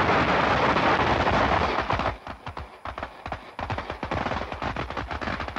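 Gunfire: a dense, rapid crackle of sharp reports for about two seconds, thinning into scattered single cracks, then cut off abruptly.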